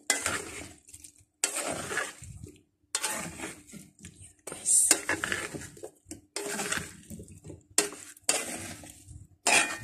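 Plastic rice paddle stirring and scraping a mayonnaise-dressed salad around a speckled nonstick metal pan, in repeated strokes about one a second.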